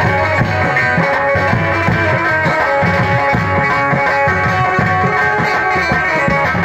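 Loud Bhojpuri dance-song music played through a stage PA: a quick, even drum beat under plucked-string and sustained melody lines.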